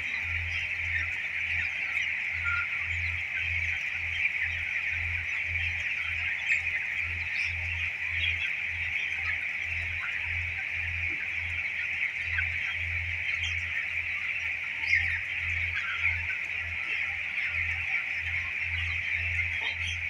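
A large flock of 18-day-old broiler chickens peeping together in a dense, steady chorus of high calls. Underneath runs a low hum that pulses a few times a second.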